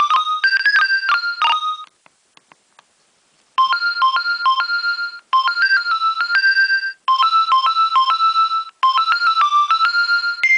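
Nokia 2300 mobile phone ringtones. One electronic melody ends about two seconds in. After a short pause with a few faint clicks, a different melody starts, repeating its phrase with brief breaks.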